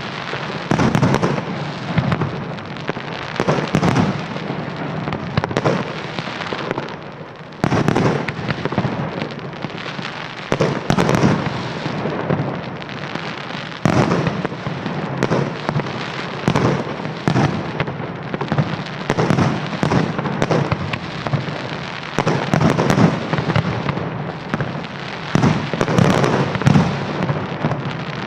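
Aerial fireworks display with shells bursting in quick succession. Overlapping bangs ride over continuous crackling, with a bigger report every few seconds.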